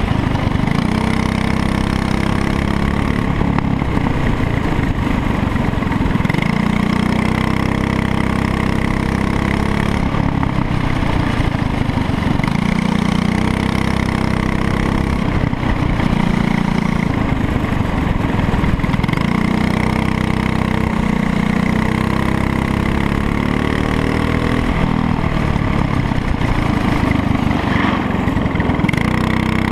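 Kart engine recorded onboard, close to the mic, revving up along the straights and dropping off into the corners, the pitch rising and falling again and again over the lap.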